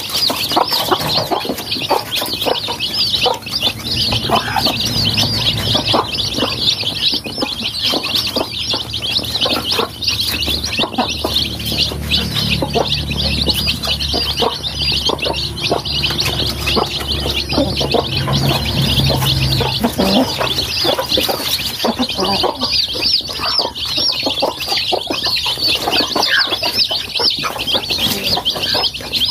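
A brood of young chicks peeping nonstop, dozens of short high calls overlapping into a dense chorus.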